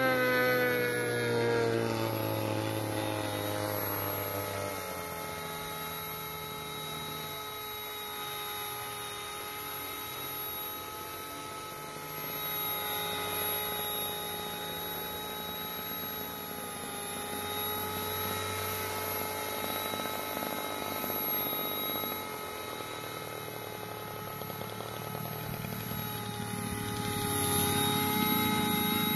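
C138 micro collective-pitch RC helicopter in flight: its electric motor and rotors make a steady high whine. The whine rises in pitch over the first two seconds, then holds, and grows louder near the end.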